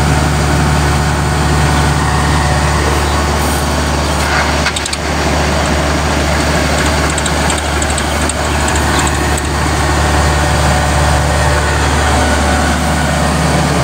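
Kubota combine harvester's diesel engine and threshing machinery running steadily, with a Powertrac tractor's diesel engine running close by. The result is a loud, even machine drone with a deep engine hum.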